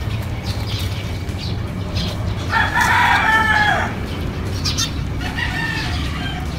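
A rooster crowing: one long call starting about two and a half seconds in and falling away at its end, then a fainter call near the end, over a steady low hum.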